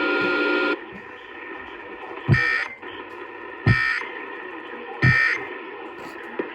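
Three short, harsh buzzy bursts of Emergency Alert System data, about 1.4 seconds apart: the end-of-message (EOM) signal that closes an alert. Before them, the steady broadcast audio cuts off under a second in.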